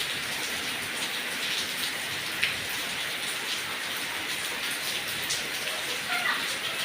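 Heavy rain falling steadily on papaya leaves, a constant hiss with single drops tapping louder now and then, the sharpest tap about two and a half seconds in.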